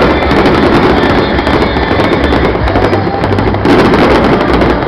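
Fireworks display: a dense, continuous run of popping and crackling from many shells bursting in quick succession.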